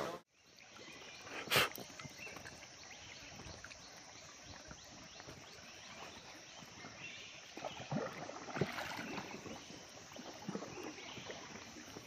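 Faint water lapping and trickling around a boat moving on a river, with scattered small knocks and one sharp click about one and a half seconds in.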